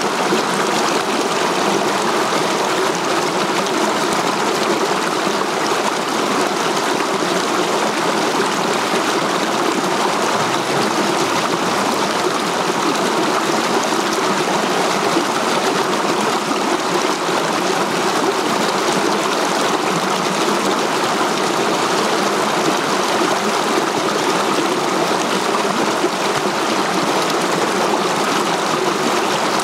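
Mountain stream rushing and splashing over boulders in small cascades, a steady, unbroken rush of water.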